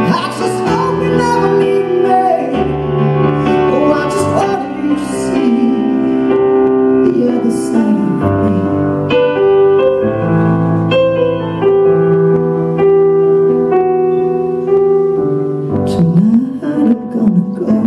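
A solo singer performing a slow ballad live, holding long notes with vibrato over piano accompaniment.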